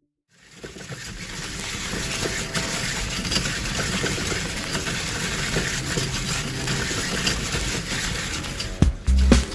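A 3D-printed sphere machine running: a power-tool motor hums steadily under the rushing scrape of its cutter shaping a wooden blank into a ball. The sound fades in after a brief silence, and heavier low knocks come in near the end.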